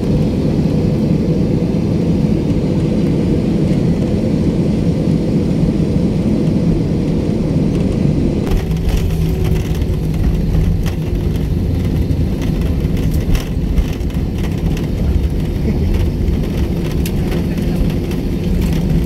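Cabin noise of a jet airliner on landing: a steady low roar of engines and rushing air, then about eight seconds in the wheels touch down and the sound changes, with rattling and knocking in the cabin as the plane rolls out along the runway.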